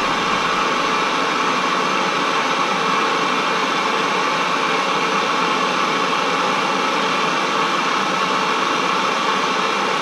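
Hand-held gas torch burning with a steady hiss while its flame warms a motorcycle fork's outer tube. The heat expands the tube so the slider bushing can be fitted. The torch cuts off abruptly right at the end.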